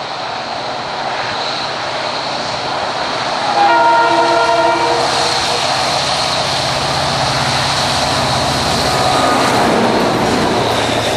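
SŽ class 664 diesel locomotive hauling a train of covered goods wagons, running under load and growing louder as it approaches. About three and a half seconds in it sounds one horn blast lasting over a second, and near the end it passes close with the wheels clattering over the rails.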